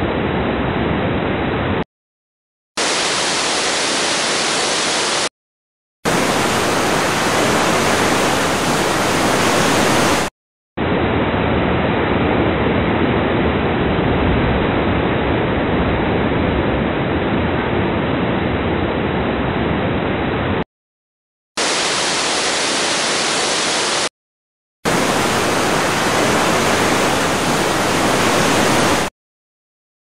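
Waterfall, a steady rushing of falling water, in several separate takes cut together with about a second of silence between them. Some takes sound duller, lacking the high hiss of the others, and the sound stops near the end.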